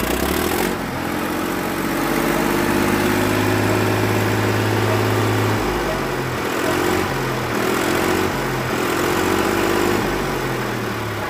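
Ford 3600 tractor's three-cylinder diesel engine running, showing it in working order: a steady note for the first half, then its speed rises and falls several times.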